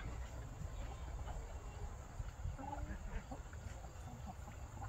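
Quiet farmyard ambience with a few faint, soft clucks from a flock of chickens.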